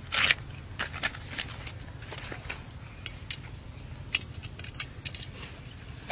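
Fresh green corn husks being stripped from the cob: a loud crisp tear at the start, then scattered short crackles and rustles as the husks are handled.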